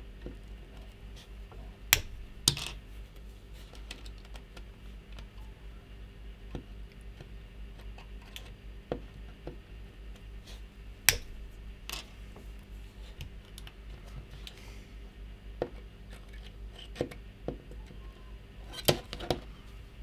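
Side cutters snipping plastic pin header strips to length: a few sharp snaps spread out, the loudest about two seconds in, near eleven and twelve seconds, and twice near the end, with light handling clicks between, over a steady low hum.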